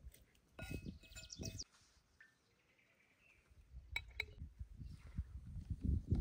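A fork clinking and scraping against a metal bowl as a chopped salad is tossed, in a short run of strokes, then a lull with faint bird chirps. Two sharp clicks follow, and low outdoor rustling noise builds near the end.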